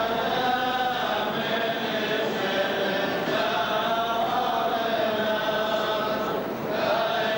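A choir chanting a slow liturgical hymn, the voices holding long notes that shift pitch every second or two.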